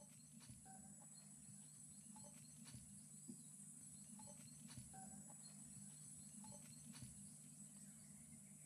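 Near silence: faint outdoor ambience with a steady high insect drone, a few short faint chirps, scattered light taps and a low steady hum.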